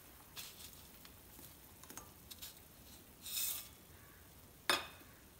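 Blocks of dry instant noodles being dropped into a pan of boiling water with diced carrot: scattered light crackles and small splashes, a brief hiss a little past three seconds in, and one sharper knock near the end.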